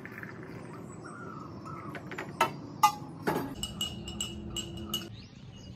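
A couple of sharp knocks, then a metal spoon clinking quickly and repeatedly against the inside of a glass mug as tea is stirred, for about a second and a half.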